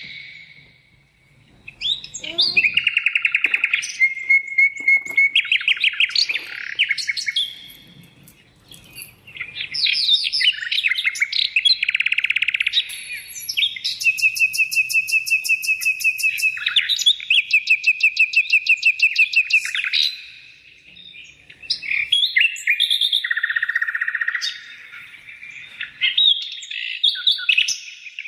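A small songbird singing long phrases of rapid trills, chirps and whistled notes, with brief pauses between phrases.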